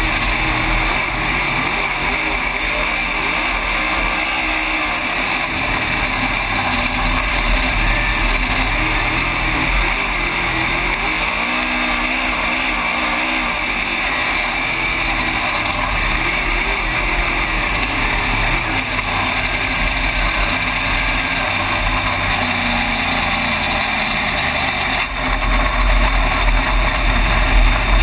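Race car engine running hard during a race, heard from inside the cockpit: its pitch dips and climbs again as the throttle is lifted and reapplied, over a heavy low rumble that grows louder near the end.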